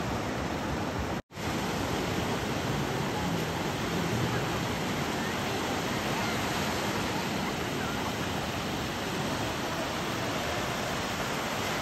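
Steady rush of surf breaking and washing up a beach. The sound cuts out for a moment about a second in.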